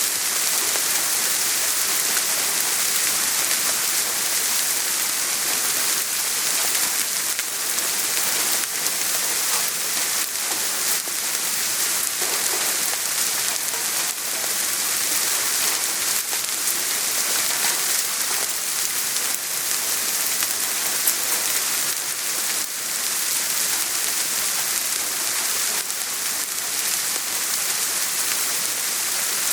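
Soft, steady rain falling: an even hiss with many faint, scattered drop ticks.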